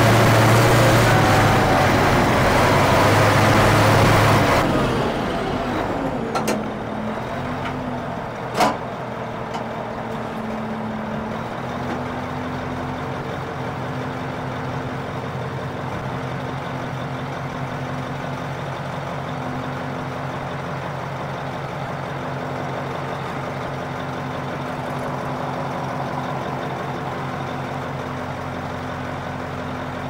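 International Harvester TD20E bulldozer's 13-litre DVT800 V8 diesel working hard at high revs for the first four or five seconds, then settling to a steady idle. A sharp clack comes about eight and a half seconds in.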